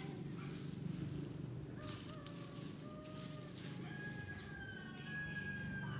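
A rooster crowing in long, drawn-out calls, one starting about two seconds in and a higher one from about four seconds, over a steady low hum.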